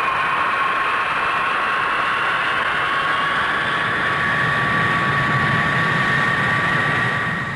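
Pratt & Whitney turbojet engine of the Boeing 367-80 (Dash 80) running steadily: a loud rushing noise with a high, steady whine, fading away at the end.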